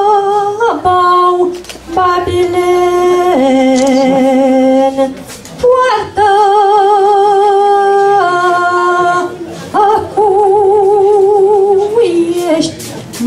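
A woman's solo voice singing a Romanian doina, without accompaniment: long held notes with a steady vibrato, each phrase stepping down in pitch, broken by short pauses for breath.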